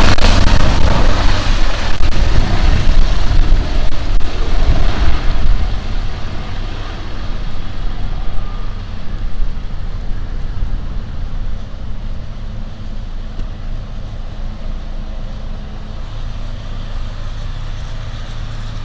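Medical helicopter flying away after takeoff: loud rotor and turbine noise fades over the first several seconds and leaves a steady low engine rumble.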